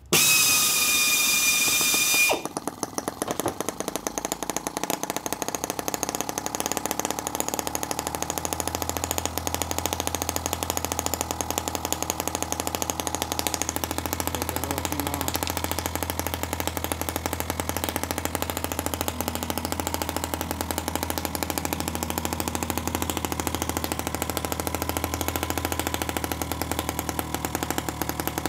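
M12 miniature single-cylinder model gasoline engine spun over by an electric drill starter with a high whine for about two seconds. It then fires and runs on its own on nitromethane fuel, a fast, steady, even popping.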